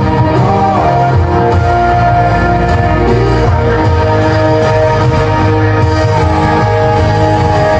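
Music played through a Yamaha HTR-2071 AV receiver and NS-PA40 home-theatre speaker set during a sound test, loud and steady, with a strong bass line.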